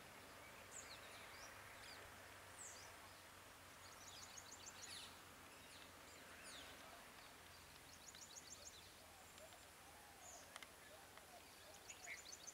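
Faint birdsong over quiet outdoor ambience: a bird repeats a short, rapid, high trill three times, about every four seconds, with scattered single high chirps between.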